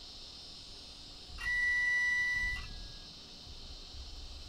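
One electronic beep: a steady high tone lasting a little over a second, starting about a second and a half in and cutting off sharply. It sits over a steady high hiss.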